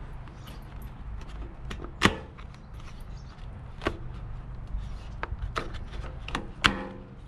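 Sharp clicks and knocks of a motorcycle's plastic trim panel being worked loose and unclipped, about six in all, the loudest about two seconds in and another near the end.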